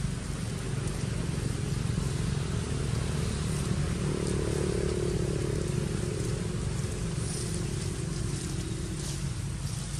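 A motor engine running steadily, with a low hum that grows louder around the middle and then eases off.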